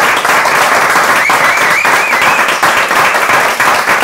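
Audience applauding steadily: many hands clapping together, dense and unbroken.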